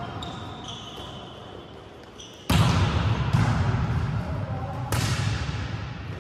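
Volleyballs being struck and bouncing in an echoing sports hall, with a sharp hit about two and a half seconds in and another near five seconds.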